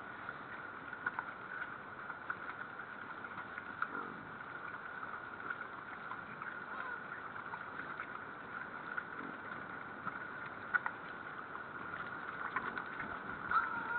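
Wild boars feeding on grain spread over snow: irregular crunching and clicking from chewing and rooting, with a few sharper clicks, over a steady high hum.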